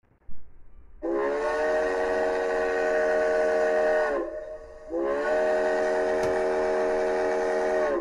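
Steam locomotive chime whistle blowing two long blasts of about three seconds each, several tones sounding together, each sagging slightly in pitch as it cuts off.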